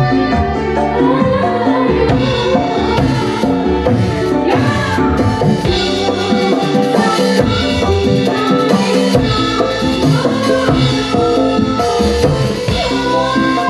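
Music with drums and percussion under a melodic line that bends in pitch.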